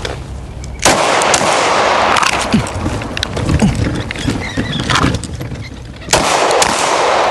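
A string of gunshots fired at a run while a course of fire is shot against a shot timer, some shots close together and others spaced out.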